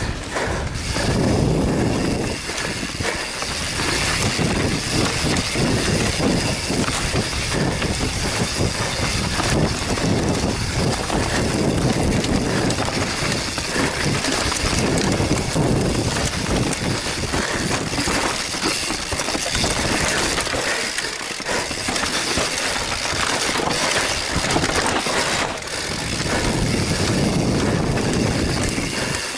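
Wind buffeting a helmet-mounted camera while mountain bike tyres roll fast over dirt and dry leaves on a downhill trail, with frequent knocks and rattles from the bike over bumps.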